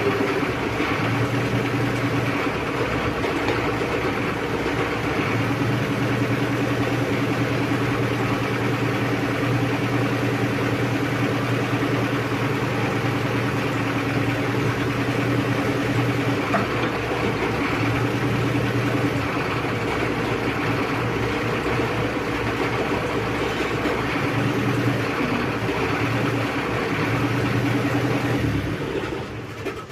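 Excavator's diesel engine running steadily under hydraulic operation of the boom, then stopping near the end.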